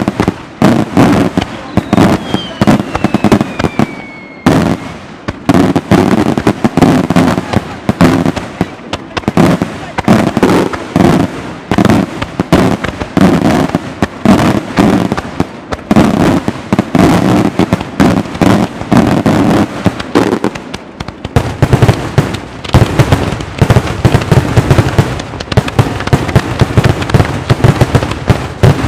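Maltese daytime fireworks: a dense, continuous barrage of aerial salute shells bursting in rapid bangs, several a second, heard from close to the firing site. A falling whistle sounds about two to four seconds in, and the bangs grow deeper and heavier from about two-thirds of the way through.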